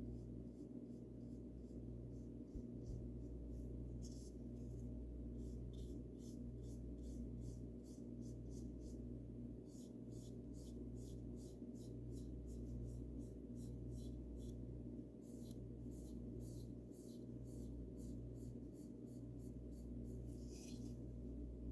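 Paintbrush bristles brushing paint onto a bird house: a run of short scratchy strokes, sparse at first, then about two a second, over a steady low hum.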